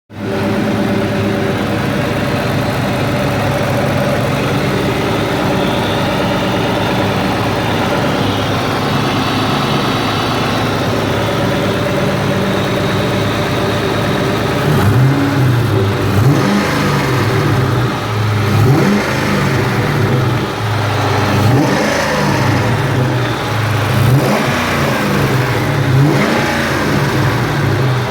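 1999 Ford Mustang Cobra's 4.6-litre four-valve V8 with aftermarket exhaust, idling steadily, then blipped through a series of short revs from about halfway through. It is making a noise that the owner first took for the typical 4V tick and now suspects is a spun bearing.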